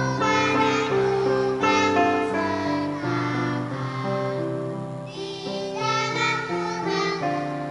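Children's choir singing a hymn in parts with keyboard accompaniment.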